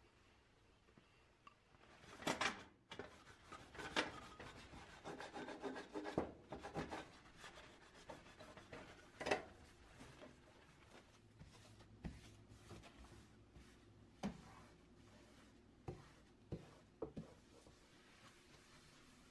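Paper towel wiping and rubbing across a kitchen countertop in bursts, with a few light knocks as items on the counter are moved.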